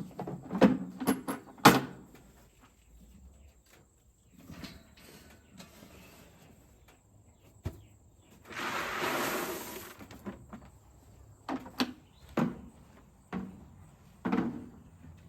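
Scattered knocks and clatter of things being handled, such as doors and containers, with a rushing noise lasting about a second and a half near the middle.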